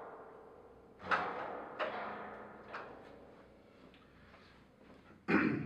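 Aluminium pop-top roof frame knocking and clanking as the spring tension on its lift mechanism is let off: three sharp knocks in the first three seconds, each with a short metallic ring, then a louder, deeper thump near the end.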